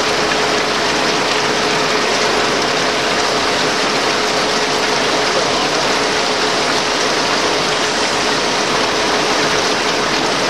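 Cone six-spindle automatic lathe running, cutting parts off bar stock under a flood of cutting oil. It makes a steady, dense machine noise with a steady tone running through it, and the coolant splashes over the tooling.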